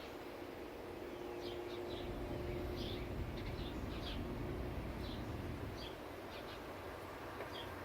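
Strong gusty wind buffeting the microphone as a low rumble that swells in the middle, with birds giving short chirps several times.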